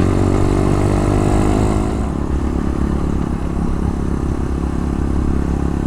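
Small single-cylinder four-stroke engine of a Honda Dax-style minibike running steadily under way, its pitch level for about two seconds and then becoming rougher and less even. Low wind rumble on the microphone runs underneath.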